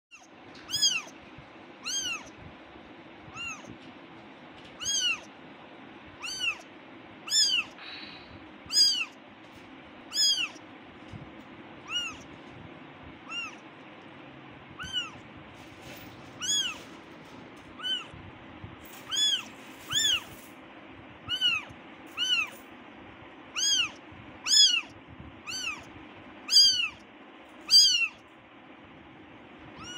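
Very young kitten meowing over and over for its mother, a super high, thin call. There are more than twenty short calls, roughly one every second or so, each rising then falling in pitch.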